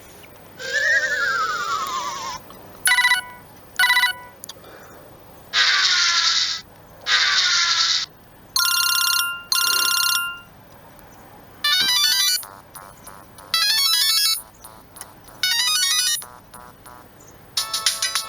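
A Siemens M65 mobile phone playing a string of short electronic alert sounds one after another, each about a second long with short gaps between. The first is a warbling falling tone; after it come two short beeps, two noisy falling sweeps and several brief chiming figures. A longer ringtone melody starts near the end.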